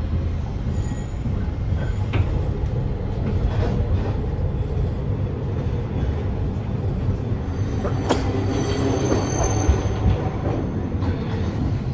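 Nagasaki Electric Tramway 3000-series low-floor tram with Toyo IGBT-VVVF drive running, heard from inside the car: a steady rumble of wheels and running gear on the rails. Brief high squealing tones come in about eight seconds in.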